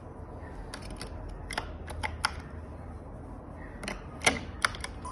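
About eight sharp clicks and taps at irregular spacing: batteries being pushed back into the battery compartment of a fingerprint smart lock.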